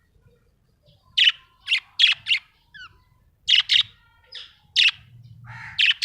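Budgerigar chirping: short, sharp, high calls in quick groups of two to four, starting about a second in.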